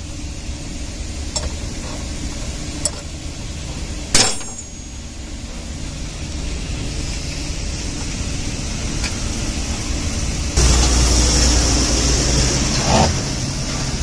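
Handling noise from a large air filter element and its housing: one sharp knock with a short ring about four seconds in, then a sudden stretch of loud rubbing and scraping about two-thirds through, over a steady low machine hum.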